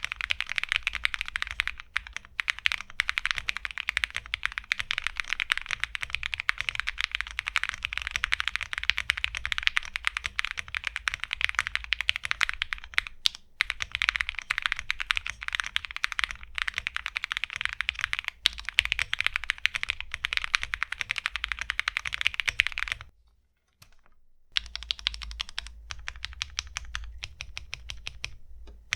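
Fast typing on a Glacier80 TKL mechanical keyboard: a plateless, gasket-mounted board with lubed Alpaca v2 linear switches and thick Osume Tsukimi PBT keycaps, giving a rapid run of keystrokes. The typing stops for about a second and a half some 23 seconds in, then resumes.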